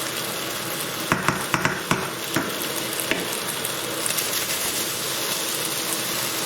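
Chicken pieces frying in hot oil in a pan, a steady sizzle. A spoon clicks and knocks against the pan several times about a second to two and a half seconds in as the chicken is stirred to keep it from sticking.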